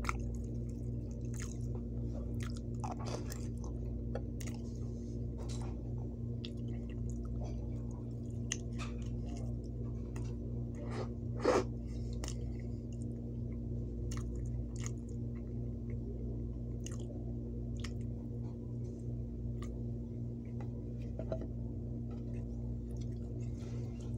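Close-up chewing of soft food (beans, mashed potatoes and roast in gravy), with many short, irregular mouth clicks and one louder one about halfway through, over a steady low hum.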